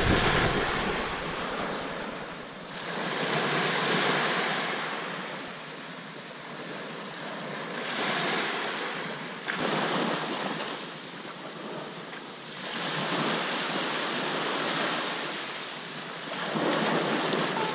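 Small waves breaking and washing up a sandy beach, the surf swelling and fading about every four seconds.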